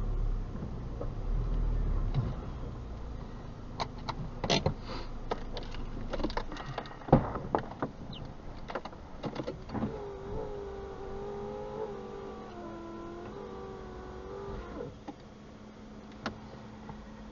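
Sounds inside a stopped car's cabin: a run of sharp clicks and knocks, then a wavering whine for about five seconds.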